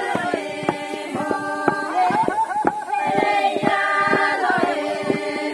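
A group of women singing a folk chant together, with a steady run of wooden knocks from long bamboo pestles pounding in wooden mortars.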